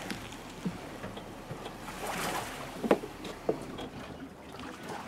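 Lake water lapping and sloshing against a boat hull as the boat floats off its trailer, with a brief surge of splashing about two seconds in and two short, sharp knocks just after.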